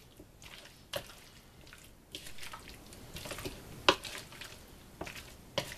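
A spoon stirring dressed potato chunks in a mixing bowl: wet squishing and scraping, with scattered clicks of the spoon against the bowl, the sharpest about four seconds in.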